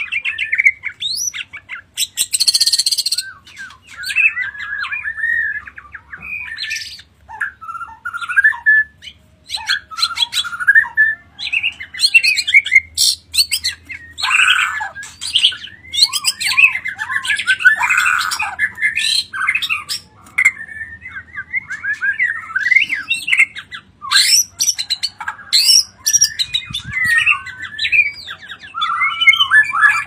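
Caged white-rumped shama (murai batu) of the Bornean type singing loudly and almost without pause. Its varied song mixes whistled glides, fast trills and harsh chattering notes, with a rasping burst a couple of seconds in.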